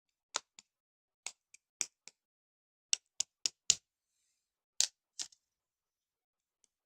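Slime being squeezed and pressed by hand, giving short, crisp pops and clicks at irregular intervals, several in quick runs.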